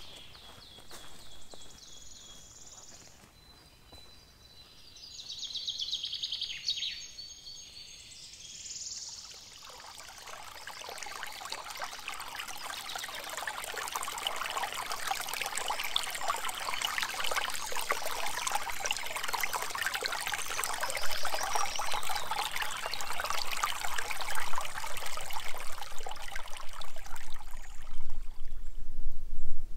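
Small forest stream trickling and splashing over rocks in a little cascade, building up about ten seconds in. Before that, birds singing. Near the end there is a low rumble.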